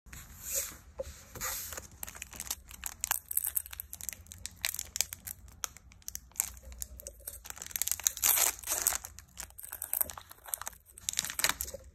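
Foil wrapper of a Pokémon trading-card booster pack crinkling and tearing as it is peeled open by hand, in a run of crackles with the loudest stretch about eight seconds in.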